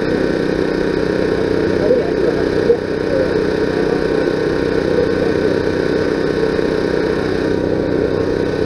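Steady mechanical hum of an engine running without let-up, with faint voices in the background.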